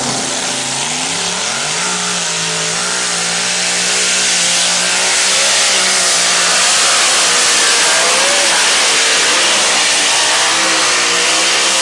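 Competition pulling tractor's engine revving up about a second and a half in, then running loud and hard at full throttle down the track, its pitch wavering as the load changes.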